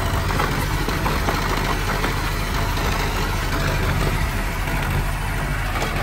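Komatsu D20P bulldozer's diesel engine running steadily, with scattered light clicks over it.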